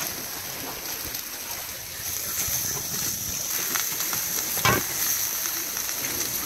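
Steady rush of sea water and wind around a sailing catamaran under way, with a brief sharp sound about four and a half seconds in.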